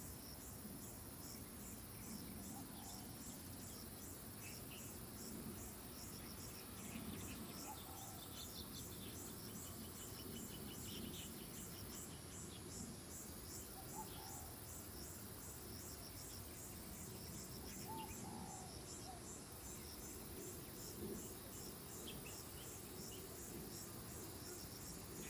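Insects chirping in a steady, high-pitched pulsing rhythm over a faint low background hum, with a few faint bird calls.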